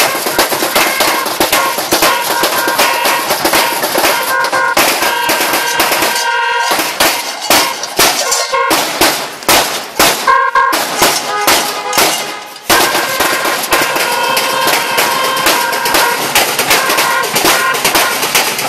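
Ground fireworks crackling and popping in dense rapid volleys, thinning to a run of separate sharp cracks through the middle before the dense crackle resumes. Steady ringing tones sound over the crackle.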